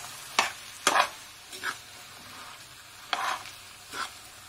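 Metal spatula stirring a mashed potato and pea filling in a metal kadhai, scraping and knocking against the pan several times at an uneven pace.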